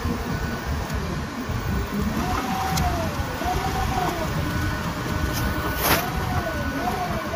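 Electric motor driven through a 250-watt e-bike controller, its whine rising and falling again and again as the throttle is worked, over a steady rumble. A sharp click about six seconds in.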